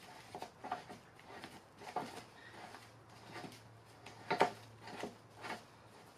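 Spanner working a Classic Mini subframe-mount nut loose: a string of light, irregular metallic clicks and taps, with one louder clack about two-thirds of the way through, over a faint steady low hum.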